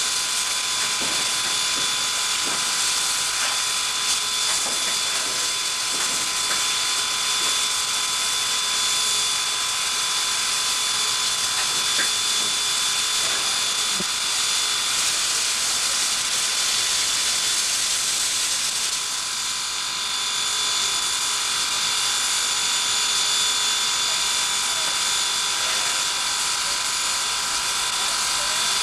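A steam locomotive standing and hissing steam steadily, with a few faint steady whistling tones over the hiss and an occasional click.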